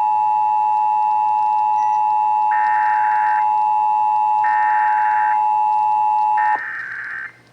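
Emergency Alert System two-tone attention signal (853 and 960 Hz), a loud, steady tone that cuts off suddenly about six and a half seconds in. Three short bursts of higher data tones overlap it about a second apart, the SAME header bursts of the EAS test.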